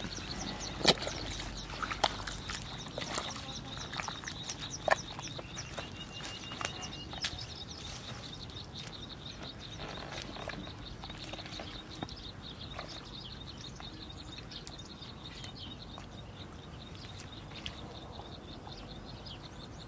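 Steady, rapid high-pitched chirping from small creatures in the paddy. Over it come scattered knocks and splashy steps in mud and shallow water during the first half, the loudest about a second in.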